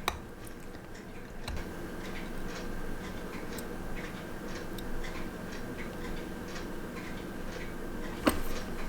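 Small, irregular metallic clicks and ticks of a watchmaker's screwdriver and tweezers on the tiny screws of a quartz watch movement as the screws are undone, over a steady low hum. A couple of sharper, louder clicks come near the end.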